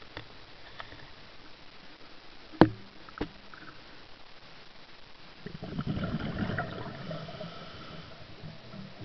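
Underwater recording: a sharp knock, the loudest sound here, followed about half a second later by a smaller one. Then, for about two and a half seconds, comes a gurgling rush of a diver's exhaled bubbles.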